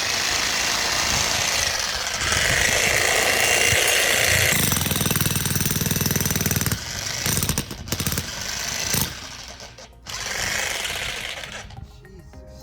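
Vevor 2200-watt electric jackhammer with a shovel bit hammering into dirt. It runs unbroken for about seven seconds, then in short stop-start bursts, and one last burst before it stops near the end.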